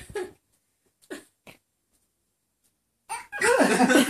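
Family laughter: after a quiet spell, a loud burst of hearty laughter breaks out about three seconds in and is still going at the end.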